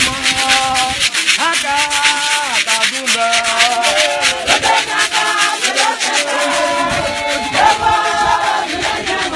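A church choir of many voices singing together over a steady beat of sharp, rattling percussive strokes, a few a second.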